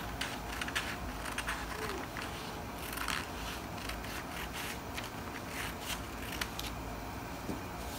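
Scissors snipping through pattern paper, cutting out the curve of a bodice armhole in a series of short, irregular snips.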